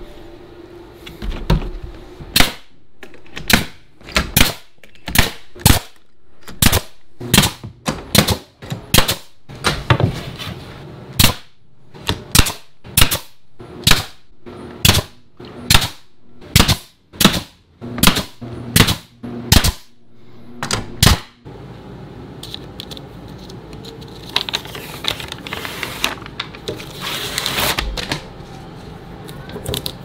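Pneumatic nail gun firing nails into pine trim boards, a long run of sharp shots about one to two a second. The shots stop about two-thirds of the way through, and a steady mechanical noise follows.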